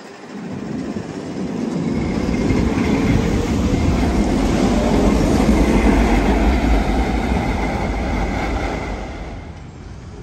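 Vintage articulated street tram passing close by on its rails: a deep rumble of wheels and running gear that swells over the first two seconds, peaks midway and fades as the tram draws away near the end, with a faint high whine in the middle of the pass.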